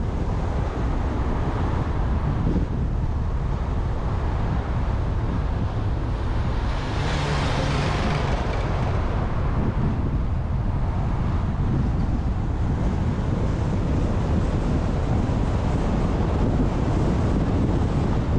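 Wind buffeting the microphone over the steady low rumble of a car driving along a paved road, with a brief louder hissing rush about seven seconds in.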